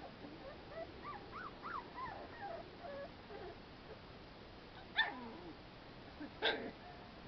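Very young American Pit Bull Terrier puppies whimpering and squeaking, many short high cries overlapping as they crawl over each other. A louder cry comes about five seconds in, and a short, sharp louder one follows a second and a half later.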